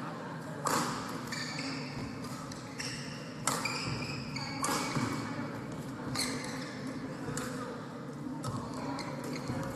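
Indoor sports hall between badminton points: sports shoes squeaking on the court floor and a few scattered sharp knocks, with the hall's echo behind them.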